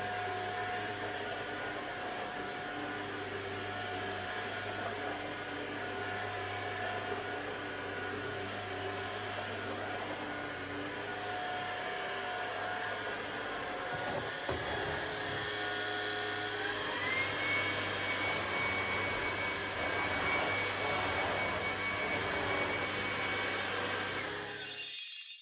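Ultenic U20 cordless stick vacuum running with a steady motor whine. About two-thirds of the way in the motor speeds up, its whine gliding to a higher pitch and holding there, then it switches off at the very end.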